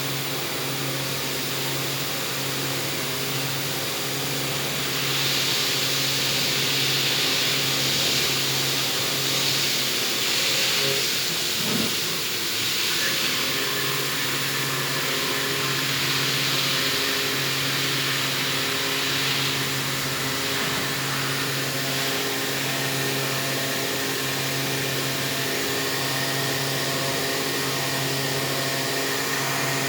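CNC machine running while cutting the teeth of a worm gear: a steady motor hum under machining noise, with a louder high hiss that rises about five seconds in and eases off around twenty seconds in.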